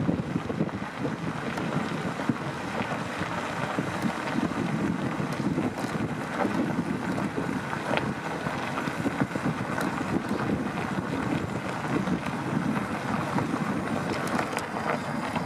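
Wind buffeting the microphone: a steady, fluctuating rumbling rush, with a few brief knocks from the handheld camera.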